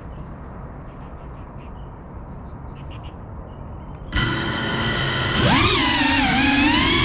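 A quadcopter drone's electric motors and propellers spin up suddenly about four seconds in, a loud whine with several pitches stacked together that wavers up and down as the throttle changes for takeoff. Before that there is only a low steady wind-like rumble.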